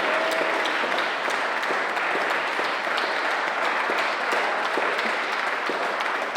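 Audience applauding at the end of a song: a steady, dense patter of clapping.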